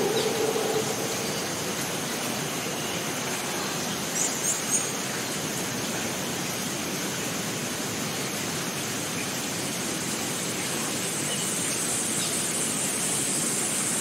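Rushing stream water, a steady even hiss, with a thin steady high-pitched whine over it. About four seconds in, three short bird chirps.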